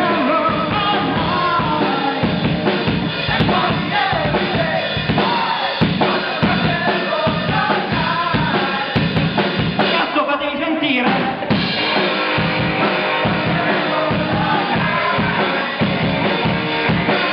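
Live rock band playing: electric guitars, electric bass and a drum kit, with a singer. The drum beats drop out briefly about ten seconds in, then return.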